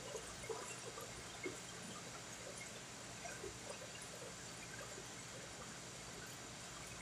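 Steady low hum and hiss of commercial kitchen equipment, with faint crackling and a few soft clicks in the first second and a half.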